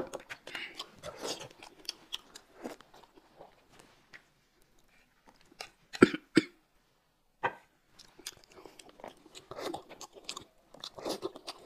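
Close-miked chewing and small clicks of chopsticks while eating boiled dumplings. About six seconds in come a few sharp knocks as chopsticks and a plate clatter while dumplings are pushed from one plate onto another, and one more knock a second later. Chewing and biting follow, picking up near the end.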